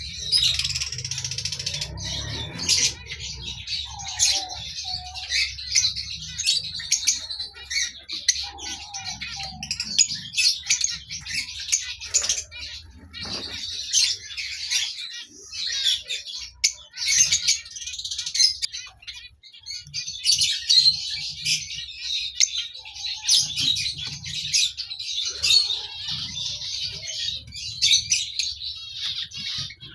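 A flock of lovebirds chirping and chattering continuously, many short high calls overlapping.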